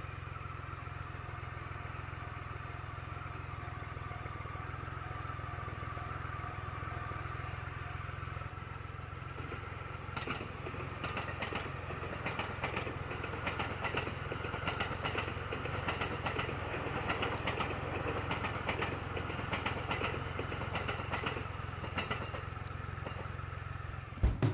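Triumph Rocket III Classic motorcycle engine running steadily with a low rumble. From about ten seconds in, many scattered sharp ticks sound over it.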